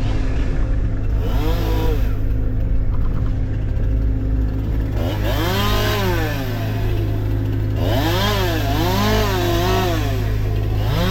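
Chainsaw engine revving up and down again and again, over a steady low engine drone.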